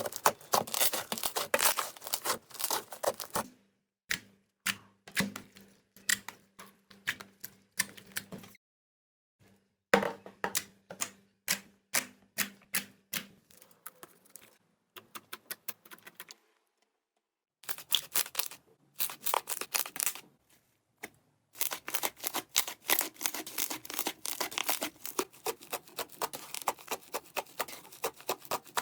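Hands squeezing, poking and stretching slime: rapid sticky clicks and crackles in several bursts, broken by a couple of brief silent gaps.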